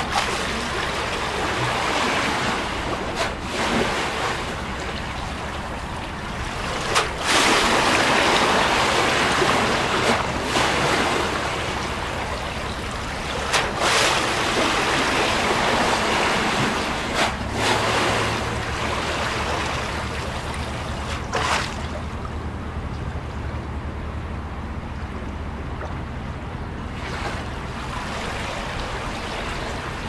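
Small harbour waves washing and slapping against a quay wall, swelling every few seconds with a sharp splash now and then. A low steady hum comes in about halfway.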